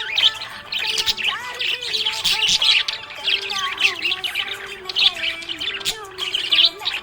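Budgerigar chirping and warbling in a dense, unbroken stream of quick chirps, mixed with some longer held notes.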